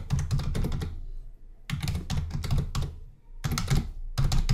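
Fast typing on a computer keyboard, in three quick runs of keystrokes separated by short pauses.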